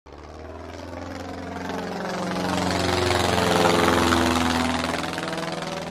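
Propeller aircraft flying past: its engine drone swells to a peak between three and four seconds in, then fades, its pitch falling as it passes.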